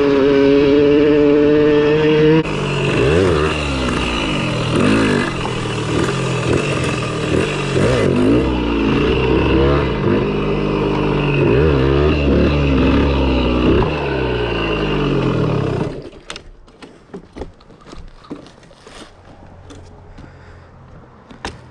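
Kawasaki KDX80 two-stroke dirt bike engine, held at a steady high rev at first, then revving up and down repeatedly as the bike is ridden. About sixteen seconds in, the engine sound cuts off suddenly, leaving only faint ticks.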